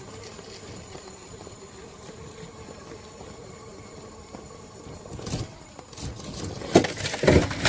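Radio-controlled scale rock crawler working over rock: a faint steady motor whine, then from about five seconds in, loud irregular scraping and knocking that grows busier toward the end.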